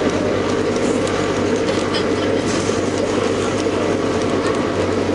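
Cabin noise inside a New Flyer C40LF CNG transit bus under way: its DDEC 50G natural-gas engine and drivetrain give a steady low drone, with scattered rattles and clatter from the body over it.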